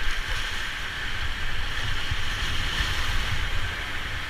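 River water rushing steadily, with wind buffeting the microphone in a low rumble.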